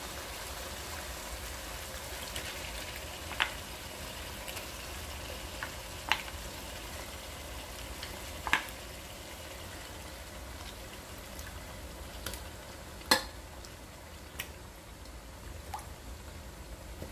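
Spice paste and oil frying in a pot with raw goat meat pieces just added, a steady low sizzle. Several sharp clicks come a few seconds apart, the loudest about 13 seconds in.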